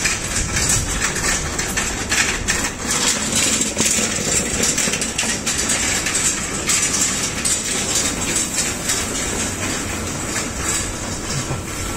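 Steady low mechanical rumble and hiss with frequent faint irregular knocks.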